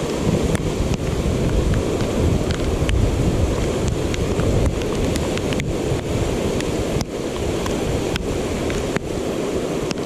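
Fast-flowing floodwater rushing and churning through a spillway, with wind buffeting the microphone in a deep rumble. Scattered light ticks run through it.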